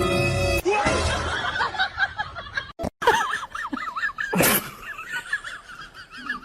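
Snickering laughter in short wavering bursts, broken off by a sudden cut about three seconds in.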